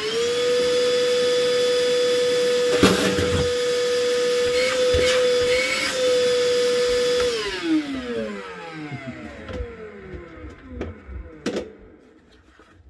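Motor of an Ozito PXC 18V cordless wet & dry vacuum cleaner running at full speed with a steady whine, then switched off about seven seconds in and winding down with a falling pitch. There is a sharp knock about three seconds in.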